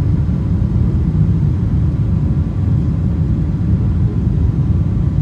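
Steady low rumble of cabin noise inside a Boeing 777-300ER in flight: its GE90 jet engines and the rush of air over the fuselage, with a faint steady hum above it.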